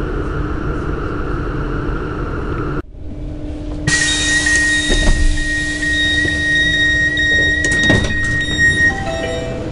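Southeastern Class 395 high-speed train interior: steady running noise with a low hum, which drops out just before three seconds. From about four seconds a continuous high electronic tone sounds from the door as the doors are released at the station, with a clunk about eight seconds in as the door opens and a few short falling tones near the end.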